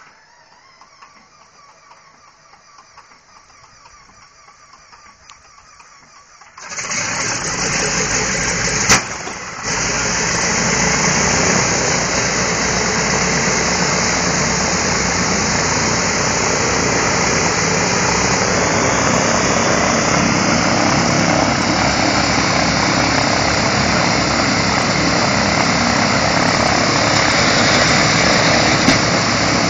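B-17 Flying Fortress's Wright Cyclone nine-cylinder radial engine starting. After several seconds of a faint whine, the engine catches about six and a half seconds in and settles into a loud, steady run with propeller wash. There is a single sharp pop about nine seconds in.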